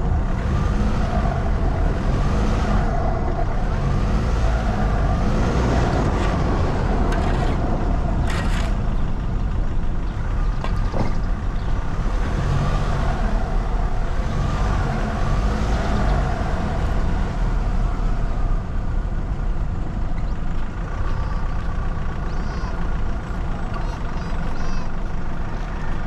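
Motor vehicle driving along, with a steady engine and road rumble.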